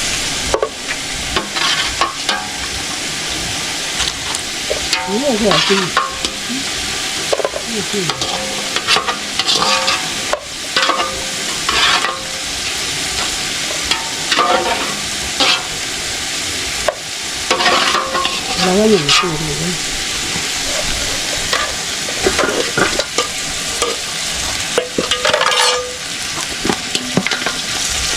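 Chicken pieces sizzling as they fry in oil in a pan. Frequent short scrapes and knocks come from a utensil stirring against the pan.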